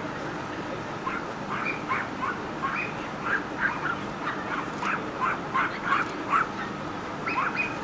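Dogs barking in short, high, irregular yaps, two or three a second, thicker and louder from about halfway through, over steady background noise.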